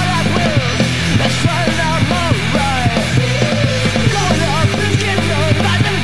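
Punk rock song played by a full band: electric guitar, bass guitar and drums together, loud, with frequent drum hits over sustained low chords.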